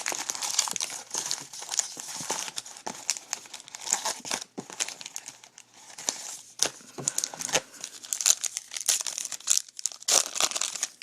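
A foil baseball card pack being torn open, its wrapper crinkling and crackling in the hands.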